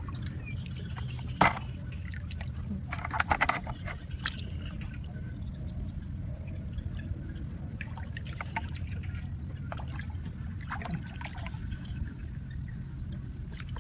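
Water trickling steadily, with a few short, sharp splashing sounds: one about a second and a half in, a cluster around three seconds, and more near eight and eleven seconds.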